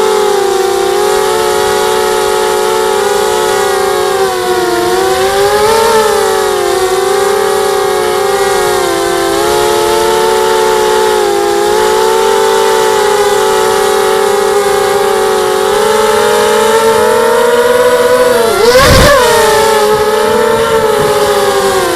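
250-size FPV quadcopter's brushless motors and propellers whining steadily, the pitch wandering up and down with the throttle. About nineteen seconds in, a brief sharp thump, the loudest moment, as the pitch dips sharply and jumps back.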